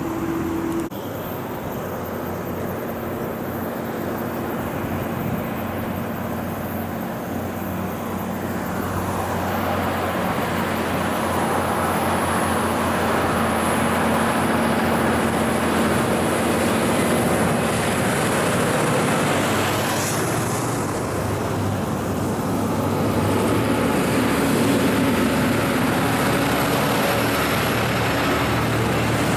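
Heavy trucks' diesel engines working up a hill grade, with tyre and road noise as the trucks pass close by. It grows louder from about a third of the way in.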